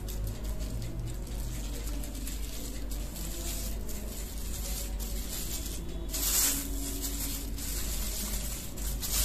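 Thin plastic bags rustling and crinkling as minced garlic is packed into them spoon by spoon, with a louder rustle about six seconds in, over a steady low hum.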